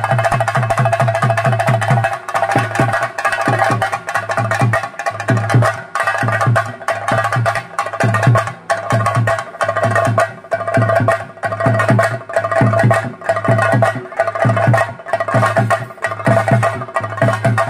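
Chenda drums playing theyyam percussion: deep repeated strokes, a dense roll at first that breaks into distinct beats about two a second some two seconds in, with sharp stick strikes between. A steady high-pitched tone is held above the drums throughout.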